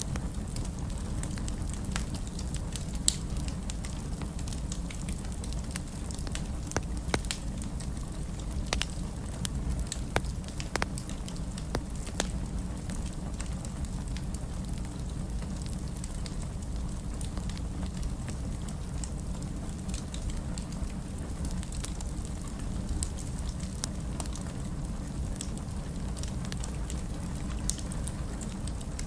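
Wood fire burning in a fireplace: a steady low rumble of flames with scattered crackles and occasional sharper pops.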